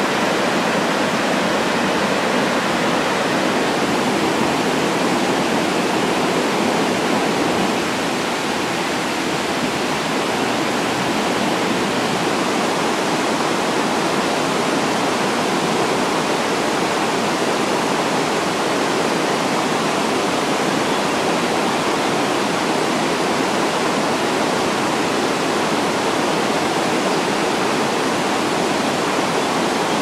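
Shallow river rapids running over rocks: a steady, even rush of water with no separate splashes or calls standing out.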